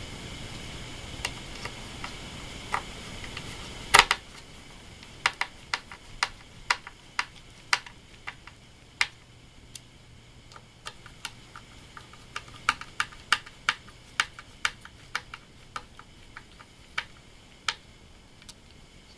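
Hand screwdriver driving screws into a wooden base, making many sharp, irregular clicks, about one or two a second, as it is turned in the screw heads. The loudest click comes about four seconds in, where a steady background hiss stops.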